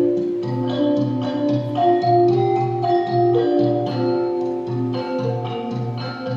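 Malay gamelan music: metallophones playing a melody of struck, ringing notes over a steady low pulse.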